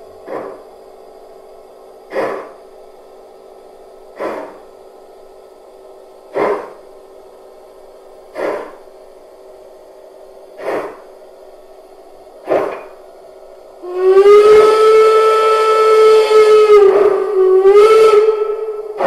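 Sound module of a 1:32 gauge 1 model of the DR steam locomotive 18 201 playing slow exhaust chuffs, about one every two seconds, over a steady faint hum. About fourteen seconds in it gives a long, loud steam whistle that dips briefly and then sounds again almost to the end.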